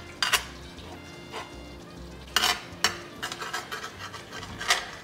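A kitchen knife chopping fresh cilantro on a plastic cutting board: sharp knocks of the blade against the board at uneven intervals, with a run of lighter, quicker taps in the second half.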